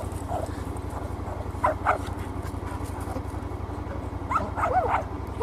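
A dog yipping and whining in short excited bursts, once about two seconds in and again near the end, eager to be sent after the birds. Under it the tracked side-by-side's engine runs steadily with a low, even pulse.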